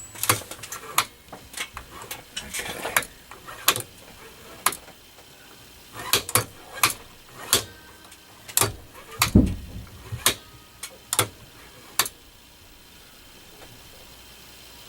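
Scattered sharp metal clicks and clinks from parts being handled and fitted on a Hornady progressive reloading press, with a duller knock about nine seconds in. The clicking stops about twelve seconds in.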